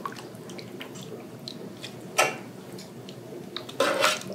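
Broth dripping and splashing as chicken bones and bits are lifted out of a roasting pan of broth and dropped into a bowl, with small drips throughout and two louder splashes, one about two seconds in and one near the end.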